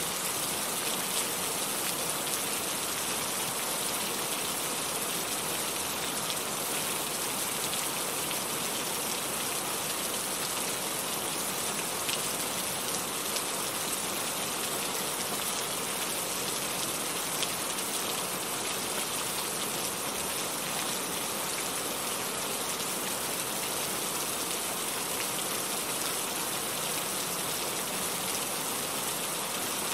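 Heavy rain falling and pattering on surfaces, a steady even hiss with faint individual drop ticks.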